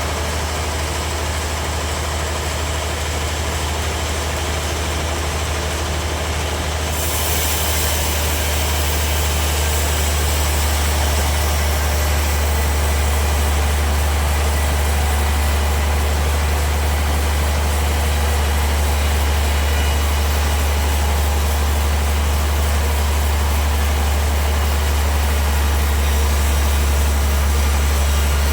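Sawmill machinery running steadily with a strong low hum. About seven seconds in, a higher hiss joins it and the sound grows a little louder.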